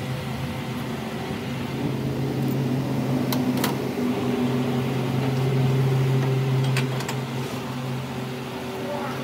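Workshop lathe motor running with a steady low hum that swells a little in the middle, with a few light metallic clicks from gear parts being handled on the machine.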